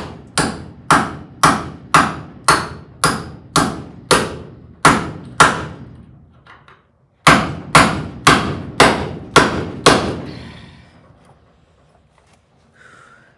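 Hammer blows on the rusted door hinge pin of a 1958 VW Type 2 bus, about two a second, driving the pin out. A run of about ten strikes, a short pause, then about six more before they stop.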